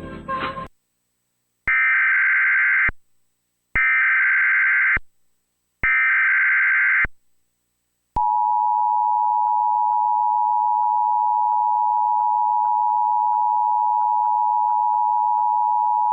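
Emergency Alert System tones from a Trilithic EASyCAST: three short bursts of SAME header data, each about a second long with a gap between, then the two-tone attention signal held steady for about eight seconds. Together they announce an incoming tornado warning.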